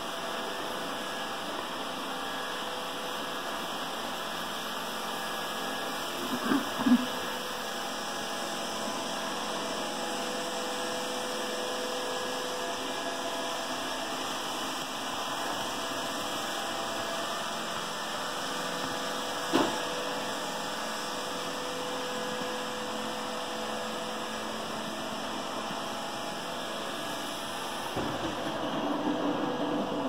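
Roomba robot vacuum running: a steady whirring hum with hiss. There are a few short knocks about six and seven seconds in and again near twenty seconds, and it grows louder with a low rumble near the end.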